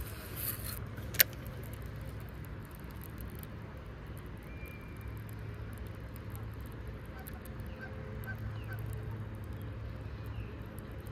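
Faint, scattered honks from geese on the water over a steady low outdoor background. There is a brief whoosh at the start and one sharp click about a second in.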